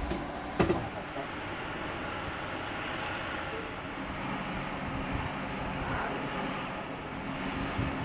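Steady mechanical drone with a faint hum of a few steady tones, and a single sharp knock about half a second in.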